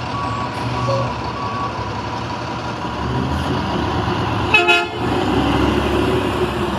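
Front-loading garbage truck's diesel engine running, with its reversing alarm beeping about every half second for the first couple of seconds, then stopping. A single short horn honk comes a little past the middle.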